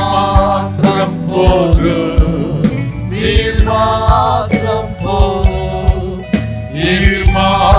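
Gospel worship song sung by male and female voices with band accompaniment and a steady drum beat.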